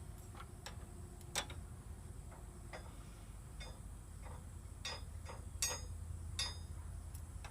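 Irregular metallic clicks and clinks of a 22 mm spanner working a hydraulic pipe fitting as it is turned clockwise to tighten it, with a few louder clinks about a second and a half in and near the end.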